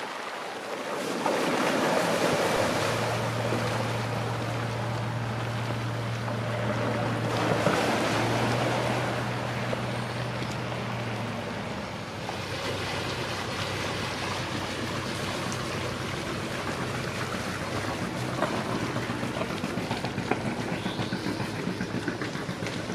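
River cruiser's engine humming steadily as the boat moves past, with wind buffeting the microphone. The hum fades away after about ten seconds, leaving wind and water.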